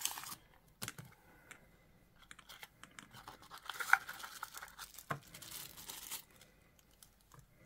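Thin plastic packaging being pulled open by hand, crinkling and tearing, with a few light clicks and taps from the small cardboard box and its parts.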